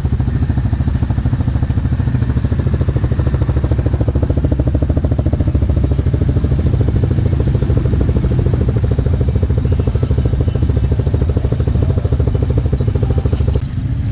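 Off-road vehicle engine running close by at a steady high speed, with an even, rapid pulsing. It drops off sharply near the end.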